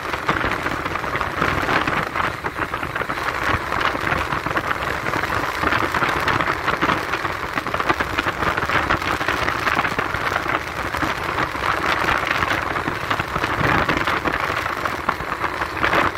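Wind rushing and crackling over the microphone of a motorcycle riding at speed, with road noise mixed in.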